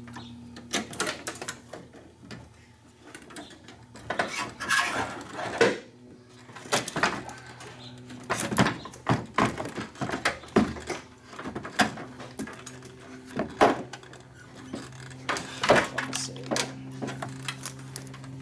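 Irregular metallic clanks, clicks and knocks of a radiator being worked loose and lifted out of an engine bay, with a low hum coming and going underneath.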